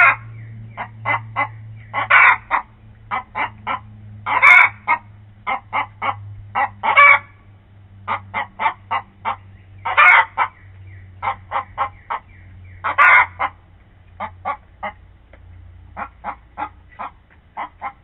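Hens clucking and squawking: runs of short clucks, each broken by a loud drawn-out squawk every two to three seconds, as they squabble over a spot.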